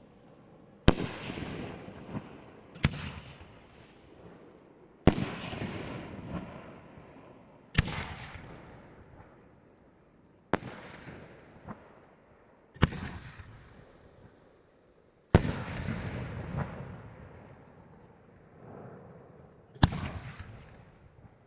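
Aerial firework shells bursting one after another, about eight sharp bangs a few seconds apart. Each bang fades away in a long rumble, and there are a few smaller pops in between.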